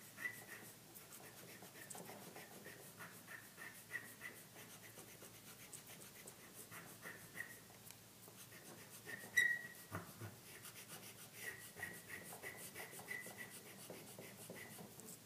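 Yellow chalk scratching on black paper in many short, quick strokes as an area is colored in, with one brief sharp tap about nine seconds in.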